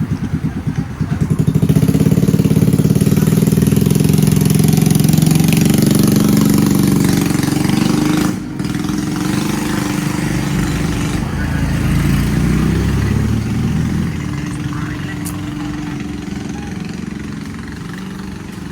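A small vehicle engine idling with an even chugging, then revving up about a second and a half in and running loud for several seconds before gradually fading away.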